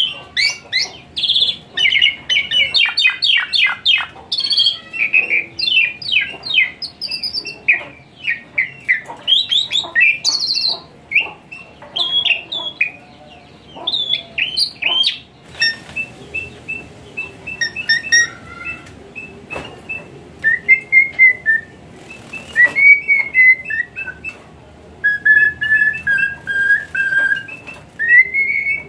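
Asian pied starling (jalak suren) singing: a fast, dense run of varied chirps, rattles and warbling notes, thinning after about fifteen seconds into sparser repeated notes and slurred whistles.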